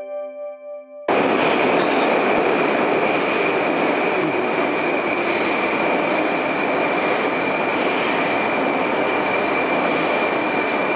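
Ringing notes of title music fade out. About a second in, loud steady metro noise cuts in: an 81-717.5M subway train standing at the station platform, a train moving on the next track, with a constant high whine over a steady rushing sound.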